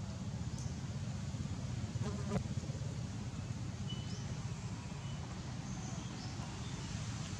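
Outdoor forest ambience: a steady low rumble with faint insect buzzing, a few brief high chirps, and a single click a little over two seconds in.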